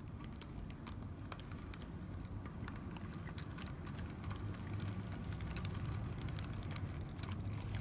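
HO scale model train rolling past on its track: the brass 2-10-2 steam locomotive, then freight cars, with a steady low rumble of wheels on rail and scattered sharp clicks as the wheels cross the rail joints. The rumble grows a little louder toward the end.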